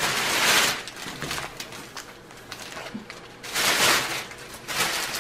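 Plastic packaging rustling and crinkling in three bouts: at the start, a little before four seconds in, and again just before the end, as bubble-wrap mailers and a bag are handled.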